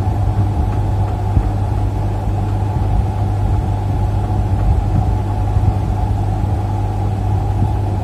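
A steady low hum and rumble that does not change, with no distinct events in it.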